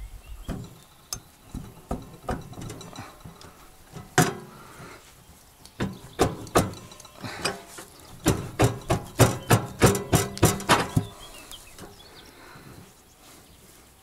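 Metal clinks and knocks from the wheel axle and height-adjuster crank of a Geo Agri tow-behind flail mower being taken apart and handled by hand, with a quick run of clicks, about three or four a second, a little past the middle.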